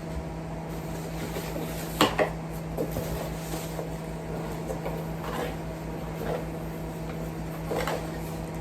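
Hard plastic vacuum attachments and packaging being handled: a sharp clack about two seconds in, then a few softer knocks and rustles.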